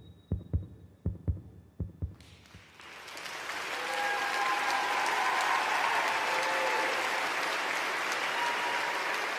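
A heartbeat sound effect in the act's soundtrack thumps in low pairs and stops about two seconds in. Studio audience applause and cheering then swells up and carries on steadily.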